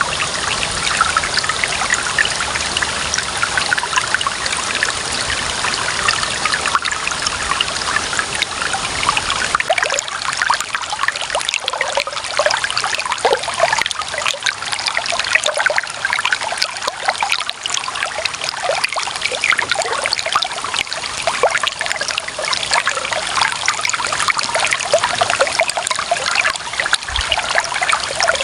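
Clear water running and trickling in a steady, continuous babble, full of small splashes and gurgles.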